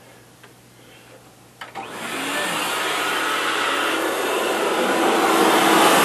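A vacuum cleaner is switched on with a couple of clicks about a second and a half in, then runs with a steady rushing motor and airflow noise that grows louder toward the end.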